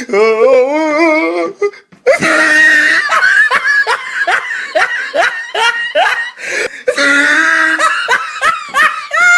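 Hearty laughter in quick repeated bursts, two to three a second, starting about two seconds in after a wavering, drawn-out vocal sound.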